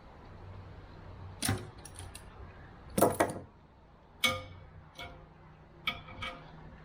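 Metal parts and hand tools clanking and knocking as a vintage air compressor is dismantled by hand: half a dozen separate knocks, the loudest about three seconds in, some ringing briefly like struck metal.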